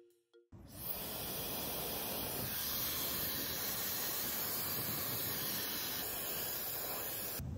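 Handheld hair dryer blowing steadily, a constant rushing hiss of air that starts abruptly about half a second in and stops just before the end.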